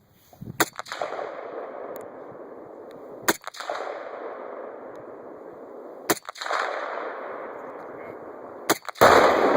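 Rifle shots fired at a tannerite target, about one every three seconds, each trailing a long rolling echo. Near the end comes a much louder blast that stays loud: the 4-pound tannerite charge going off.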